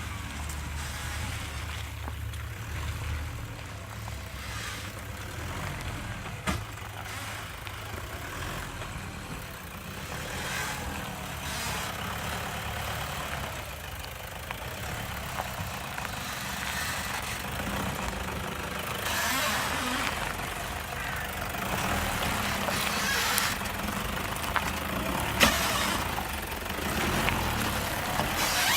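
2015 Toyota Hilux 2.5-litre diesel pickup crawling at low revs while its Old Man Emu lift suspension squeaks and creaks repeatedly as the axles articulate over rough ground. A few sharp clicks or knocks stand out, one a few seconds in and two near the end.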